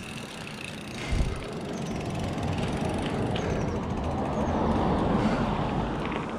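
Mountain bike rolling on pavement: tyre noise and wind noise build as it gains speed, loudest near the end, with one low thump about a second in.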